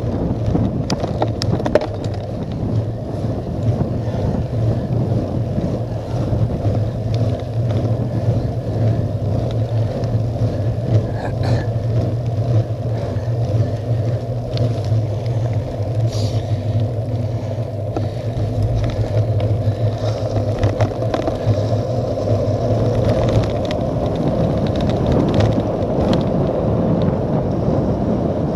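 Wind rushing over the microphone of a handlebar-mounted camera on a moving bicycle, mixed with the cyclocross bike's tyres rolling on wet tarmac and occasional small clicks. Near the end the wind noise grows louder as the bike speeds up on a descent.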